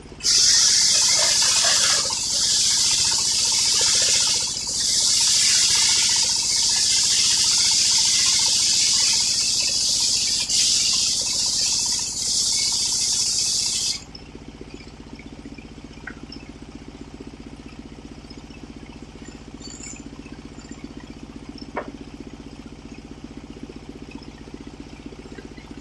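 Homemade circular sawmill blade cutting through an old coconut-wood log, a loud steady high hiss that stops abruptly about fourteen seconds in. After that only the saw's driving engine is heard idling.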